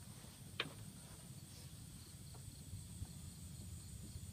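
Faint outdoor ambience with a steady high-pitched insect drone and a low rumble, broken by one sharp click about half a second in.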